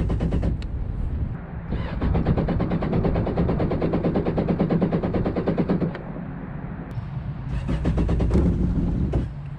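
Yamaha WaveRunner jet ski engine running with a rapid, even pulsing. It gets louder about two seconds in, eases off around six seconds, and rises again shortly before the end.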